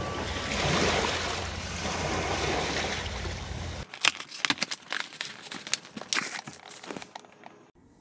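Waves washing over a rocky shore. About four seconds in this gives way to a few seconds of scattered sharp taps and rustles as a cardboard box is handled.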